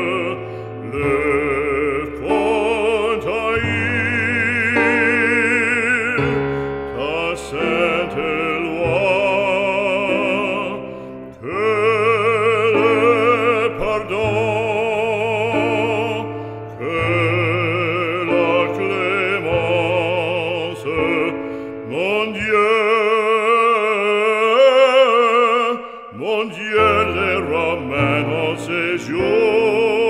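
Background music: operatic singing with wide vibrato over a sustained instrumental accompaniment.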